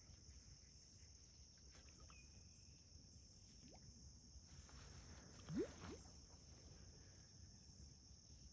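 Faint, steady chirring of crickets at night. A short rising squeak sounds once, a little past halfway.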